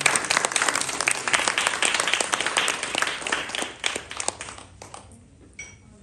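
Audience applauding, a dense patter of many hands clapping that dies away about five seconds in.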